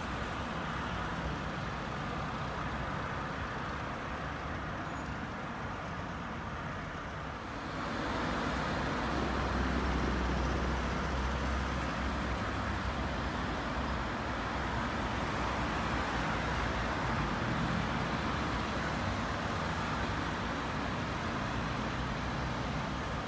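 City road traffic: a steady wash of passing vehicles. It swells about eight seconds in, when a vehicle passes close with a deep rumble.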